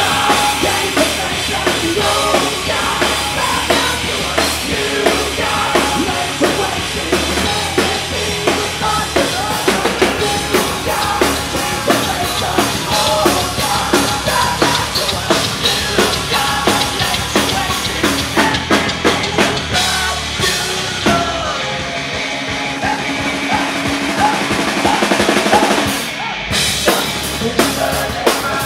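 Live rock band playing at full volume: drum kit driving a steady beat under electric guitar and a singer. Near the end the music breaks off briefly and the drums come back in.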